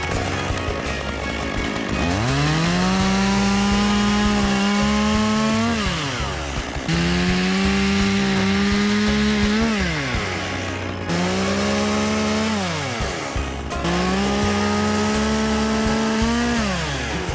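Chainsaw revved to full speed four times, each run climbing quickly, holding steady for a few seconds, then dropping back, as it cuts through branches. Background music plays underneath.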